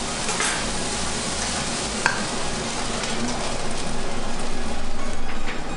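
Food sizzling in a hot frying pan as it is stirred, with a few light clinks of the utensil against the pan; the frying grows louder near the end.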